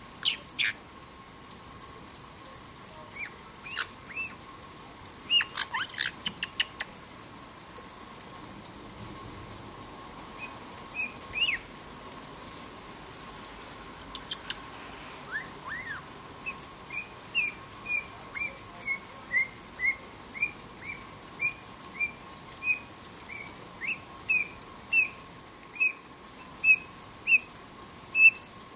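Black-headed caique calling: scattered sharp chirps and a quick clicking chatter about six seconds in, then from about halfway a steady series of short chirps, roughly two a second.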